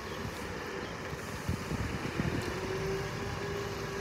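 Scania P450 concrete pump truck's 13-litre straight-six diesel engine running as the truck drives slowly and turns; a steady whine joins about halfway through.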